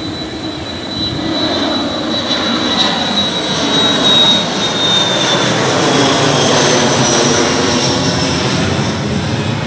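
Twin-engine jet airliner climbing out after takeoff and passing overhead, its engines at climb power growing louder. A high whine slowly falls in pitch as it goes by.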